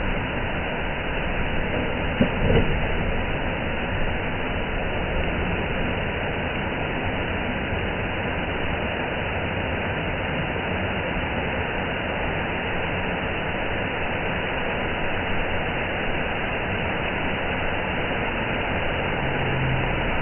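Waterfall rushing steadily, with a brief louder sound about two seconds in.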